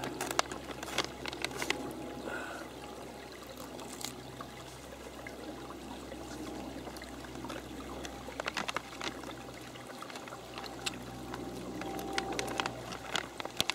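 Shallow rocky woodland stream trickling steadily, with a few light clicks close by, more of them about two-thirds of the way in and near the end.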